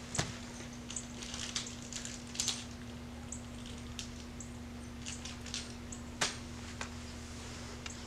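Scattered light clicks and knocks of hand tools being picked through and handled, the sharpest about six seconds in, over a steady low hum.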